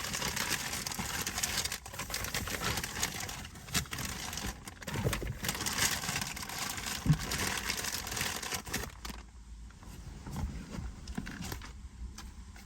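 Heavy-duty plastic garbage bag rustling and crinkling as it is handled, dense for about nine seconds, then quieter scattered handling noises.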